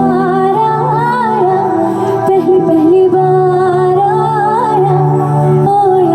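A woman singing a slow Hindi film-song melody with vibrato over a backing track of sustained chords.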